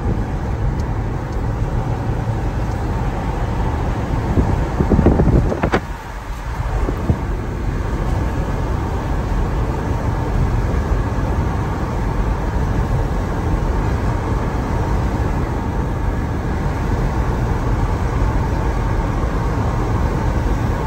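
Wind and road noise through an open car window while a Toyota RAV4 drives: a steady rushing, with a louder swell about five seconds in.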